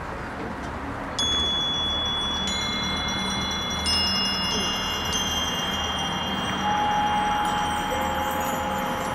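Marching band front ensemble opening its show with sustained, ringing chime-like tones that enter one after another and are held: first several high notes, then two lower ones near the end.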